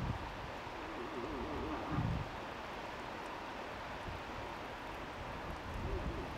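Cow moose calling: a wavering, bleating call lasting about a second and a half, starting about half a second in, with a shorter, fainter bleat near the end. Low wind rumble on the microphone underneath.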